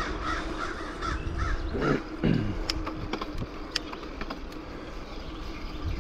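A bird calling in a quick run of repeated notes over the first two seconds or so, over a steady low rumble of wind and road noise from the moving bicycle. A few sharp clicks come a little after the middle.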